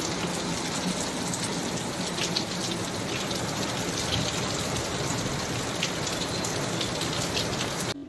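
Rain falling steadily, a dense even hiss with scattered drop impacts standing out, cutting off suddenly near the end.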